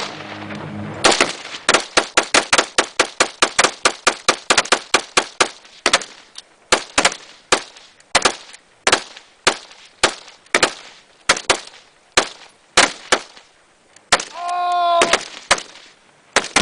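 Rapid rifle fire from several shooters, about three to four shots a second at first, then thinning out to scattered shots. A shout comes near the end.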